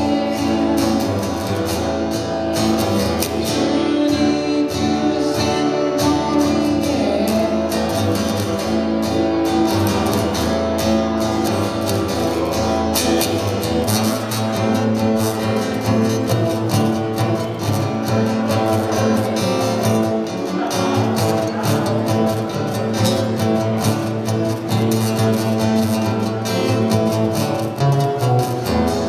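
Acoustic guitar strummed in a quick, steady rhythm, played live through a small PA speaker.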